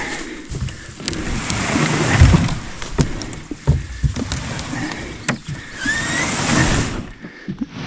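A canoe being pushed into the water and climbed into: the hull scraping and rubbing, with repeated knocks and some water splashing.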